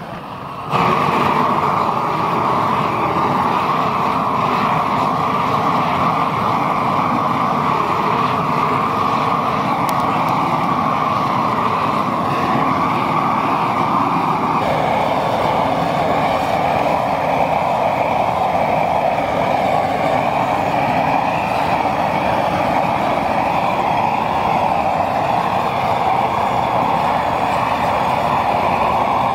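Propane torch on a long wand, fed by hose from a propane tank, burning with a steady loud roar of flame and gas jet. The roar jumps up to full strength about a second in, and its tone shifts slightly about halfway through.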